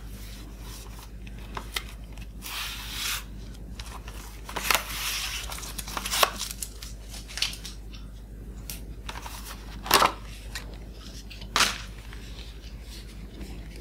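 Clear plastic wrap crinkling and tearing as it is pulled off a round plastic candy tub, then sharp plastic clicks and snaps as the tub's clear lid is pried off, the loudest about ten seconds in.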